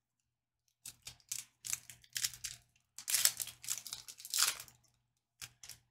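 Trading card pack wrapper being torn open and crinkled: a run of short rustling tears over about four seconds, then two brief crinkles near the end.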